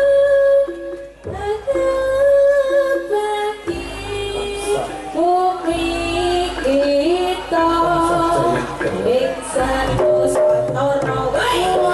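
Javanese jaranan music: a singing voice carries a wavering, held melody over drums, with a short drop about a second in.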